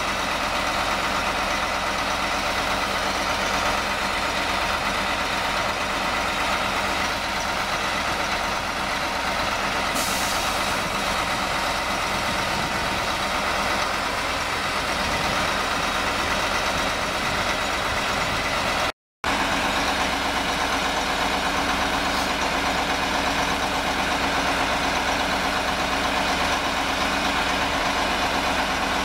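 Kamaz 43118 truck's diesel engine idling steadily while it drives the hydraulics of its knuckle-boom crane.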